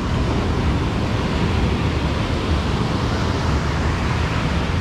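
Ocean surf breaking and washing up on a sandy beach, a steady rush with a deep low rumble underneath.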